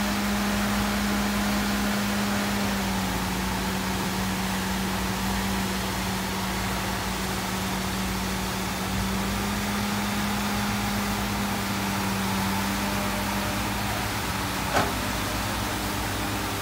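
Excavator engine running at a steady drone that shifts slightly in pitch now and then as it works, with one short sharp clank near the end.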